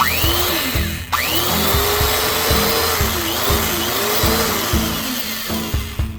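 Restored 1950s electric drill switched on and spinning up with a rising whine, cut off just before a second in, then started again. It runs for about four seconds with its pitch wavering, then winds down near the end. Background music with a steady beat plays underneath.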